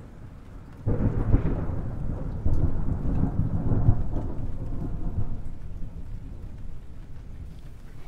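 Thunder: a low rumble that breaks into a loud crack about a second in, swells again shortly after and then slowly rolls away.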